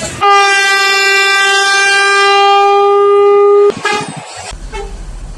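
Bus horn sounding one long, steady note for about three and a half seconds, then cutting off sharply, with a brief short toot just after.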